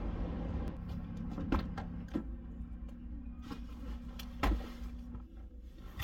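Honda Element's car door and handle clicking and knocking as someone gets into the driver's seat, then the door shut with a heavy thump about four and a half seconds in, the loudest sound.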